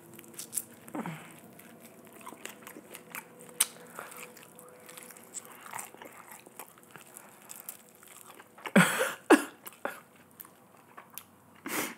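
Close-miked eating: biting into and chewing a piece of sauce-coated spicy fried chicken, with small wet crunches and mouth clicks. A few louder sharp sounds come about three-quarters of the way through.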